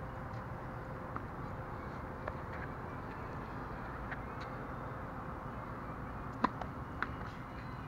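Tennis racket striking the ball on a serve: one sharp pop about six and a half seconds in, with a fainter knock about half a second later, over steady outdoor background noise and a few faint ticks.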